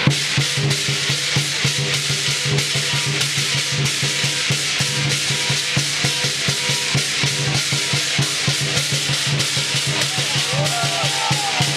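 Lion dance percussion: a large Chinese drum beating rapidly and steadily, with cymbals crashing along with it.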